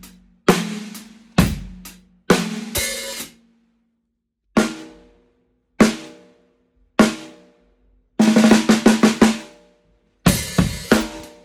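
Canopus Yaiba snare drum being played: a few strikes with the bass drum, then single snare hits a little over a second apart, each ringing out, a fast roll about eight seconds in, and a beat with bass drum starting near the end.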